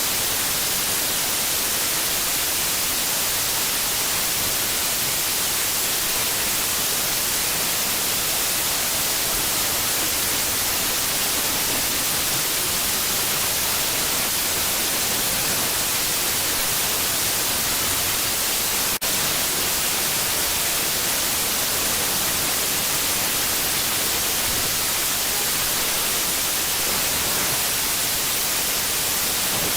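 Steady hiss of static noise, heavier in the highs than the lows, with one brief click about two-thirds of the way through.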